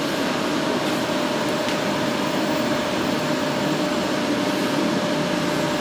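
UD-3206H wide-format inkjet printer running while it prints: a steady mechanical whir with one constant tone through it.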